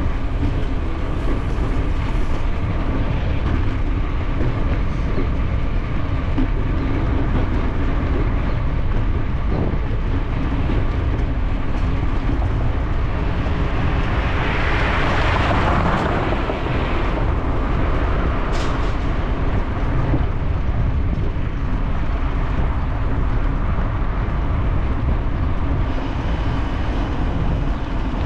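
Steady wind buffeting on a bike-mounted camera's microphone over low road rumble from the bicycle rolling on pavement. A louder hiss swells and fades about halfway through, and there is one brief click shortly after.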